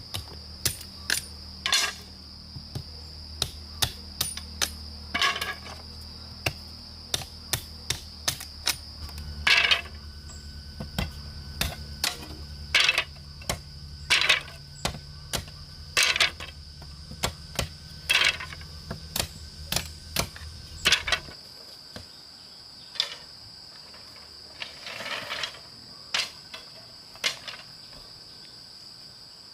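A steady, high insect drone in the forest, with many sharp, irregular knocks and taps of manual work over it. The knocks thin out after about two-thirds of the way through, where a low hum also cuts off.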